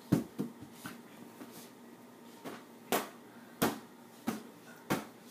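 Inflatable beach ball being hit back and forth by hand: a series of sharp, hollow smacks at irregular intervals, the loudest one right at the start.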